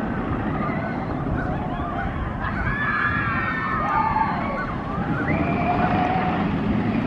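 Rocky Mountain Construction roller coaster train running along its track with a steady rumble. High wavering cries ride over it about halfway through and again near the end: riders screaming.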